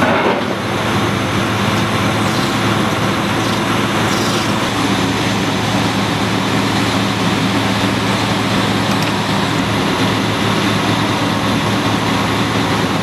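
Diesel engines of fire apparatus running steadily, with a constant low drone under a wash of noise.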